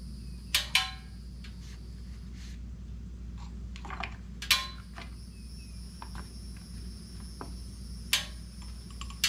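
A motorcycle oil dipstick being pulled, wiped with a shop towel and pushed back into the oil tank: a handful of short, sharp plastic clicks and clinks with rubbing between them, over a steady low hum.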